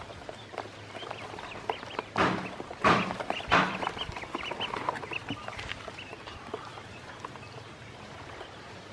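A brood of ducklings peeping, many short high calls overlapping. A few louder splashes and knocks come about two to four seconds in, as a plate of feed is set into their shallow plastic tub of water.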